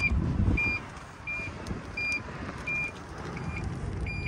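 Reverse warning beeper of a Toyota COMS electric microcar, a short high beep repeating about every 0.7 seconds as the car backs up. A low rumble of the car rolling lies under it, loudest in the first half second.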